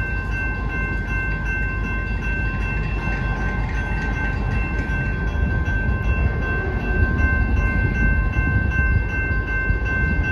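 Freight train of welded-rail flatcars rolling slowly through a grade crossing: a steady low rumble that swells a little about halfway through. Several steady high-pitched tones ring over it throughout.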